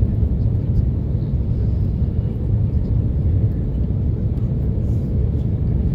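Steady low rumble of an Airbus A330-300 heard from inside the passenger cabin, with a faint steady hum running under it.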